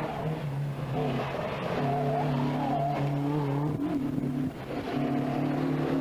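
Rally car engine running hard at steady high revs, with brief breaks in the note a few times as the throttle comes off.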